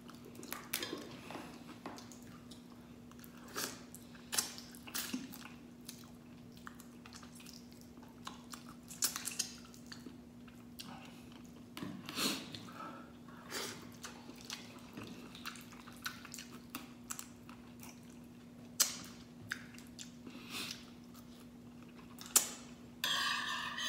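Crab being eaten by hand: mud crab shell cracked and picked apart and the meat chewed, heard as scattered short crunches and clicks at irregular intervals. A faint steady hum runs underneath.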